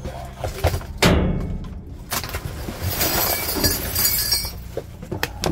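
Junk being shifted in a dumpster: a loud clunk about a second in, then a couple of seconds of clattering and clinking glass, over a steady low hum.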